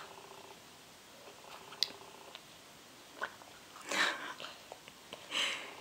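A toddler eating blueberries from a small plastic cup: light clicks of fingers against the cup, soft chewing and mouth sounds, and a short rustle about four seconds in and again near the end.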